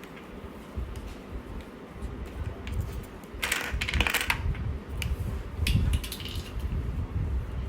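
Small hard plastic pieces clicking and clattering as they are handled, with a dense rattle about halfway through and a few sharp clicks after it.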